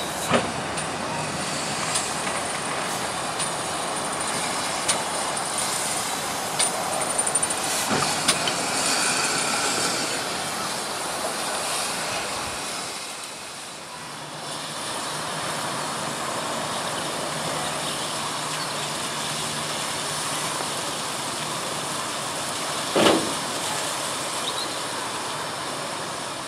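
Steam railway noise from GWR pannier tank engine 1369 and its coaches moving through the station: a rumble with scattered wheel clicks. After a fade, a steadier rushing noise with a low hum while the engine stands taking water at a water column, broken near the end by one loud clank.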